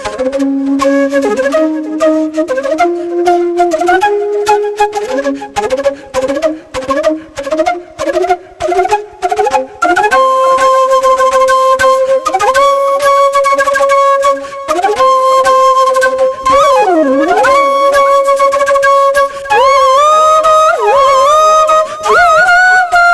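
Background flute music: a single melody line with sliding ornaments. It climbs in short, detached notes for about the first ten seconds, then moves to long held notes with bends and swoops.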